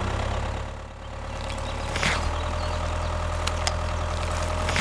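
An engine running steadily at idle, with a low drone that dips briefly about a second in before holding steady again. A short hiss sounds about two seconds in.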